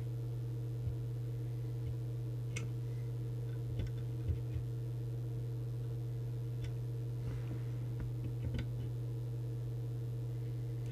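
A steady low hum with a scattering of faint, irregular clicks and taps as a plastic trimming tool is worked in the coil cores of a CB radio's circuit board.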